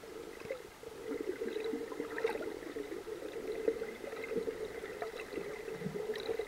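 Underwater sound picked up by a camera in a waterproof housing while snorkelling: a steady muffled hum with faint scattered ticks and the gurgle of water.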